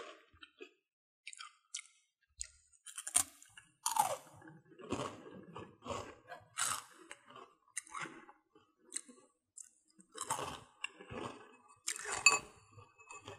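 Crisp butter-and-sugar toast crunching as it is bitten and chewed, a run of dry crackling crunches starting about three seconds in. Near the end, a hand picks through toast pieces in a glass bowl, giving a short clink against the glass.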